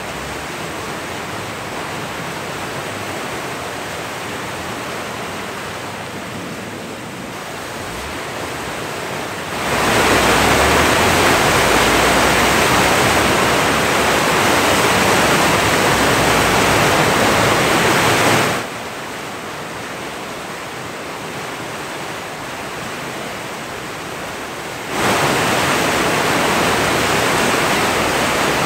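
Rushing whitewater of the South Fork Yuba River in flood, a steady hiss-like noise with no separate splashes. It jumps abruptly louder about ten seconds in, drops back about nine seconds later, and jumps up again near the end.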